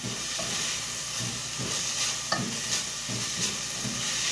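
Diced chicken frying in lard in a pan, sizzling steadily, with a utensil stirring and scraping the pan in short strokes, about two or three a second.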